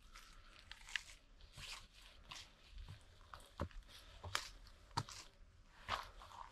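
Hiker's footsteps crunching on a dry forest trail at a walking pace, about one step every half to one second.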